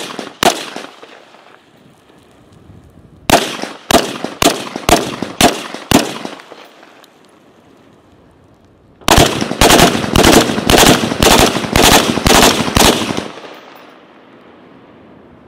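M16A2 rifle in .223 firing on a range: one shot near the start, then six shots about half a second apart, then after a pause of about three seconds a quicker string of about a dozen shots at roughly three a second, each shot trailing off in a short echo.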